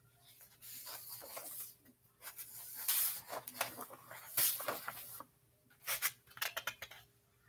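Paper rustling and scratching in irregular bursts, from a paper workbook being handled close to the microphone. There is a pause of about half a second past the five-second mark.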